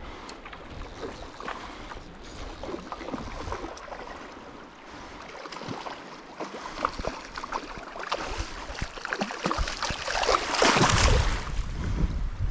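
Shallow river water running over rocks, a steady babble with small trickles and splashes. About ten seconds in it swells into a louder rush with a low rumble.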